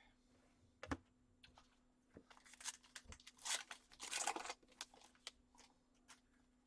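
Trading cards being handled and flipped through by hand: light taps and papery rustles. The longest rustle comes about three and a half to four and a half seconds in.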